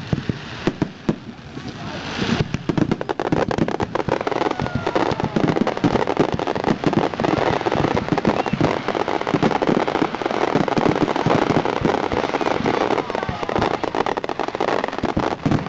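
Fireworks display: a few separate bangs, then from about two seconds in a dense, continuous crackle of many rapid pops and bangs.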